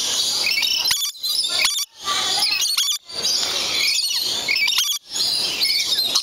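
A group of birds calling close by with many overlapping shrill chirps and squeals, the sound of birds squabbling among themselves.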